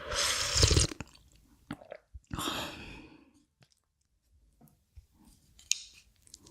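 Close-miked eating: a loud crunchy bite at the start, another around two and a half seconds in, then a quieter stretch of soft chewing and small mouth clicks with one short crunch near the end.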